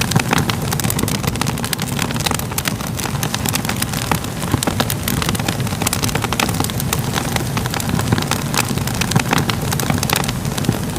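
Wood fire crackling steadily: dense, irregular pops and snaps over a low, even rumble of flames.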